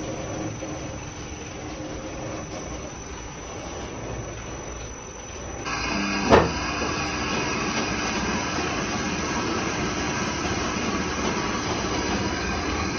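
Steady workshop machinery noise. Just under six seconds in it abruptly gets louder and fuller, and a moment later there is a single loud, sharp metallic clank.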